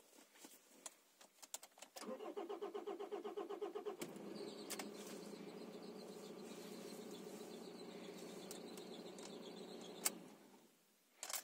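Nissan Almera N16 engine cranked by the starter motor in a quick pulsing rhythm for about two seconds, then catching and idling steadily. It is switched off near the end, followed by a couple of sharp clicks.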